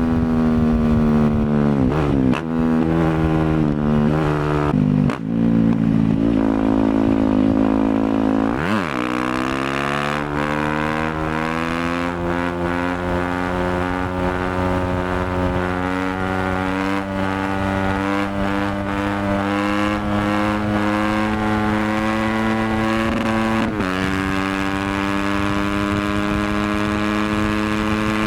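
Yamaha WR250F's single-cylinder four-stroke engine through an FMF exhaust, revving as the bike is ridden. The pitch jumps and breaks briefly several times in the first eight seconds and drops sharply and comes back up about nine seconds in. It then climbs slowly in one long steady pull, with one short break near the end.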